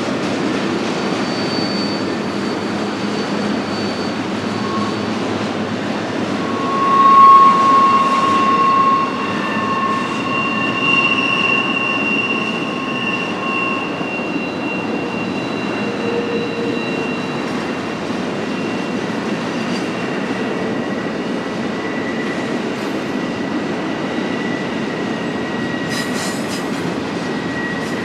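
BNSF intermodal freight train's cars rolling past with a steady rumble and clatter, and long high-pitched wheel squeals on and off. The squeal is loudest about seven to nine seconds in.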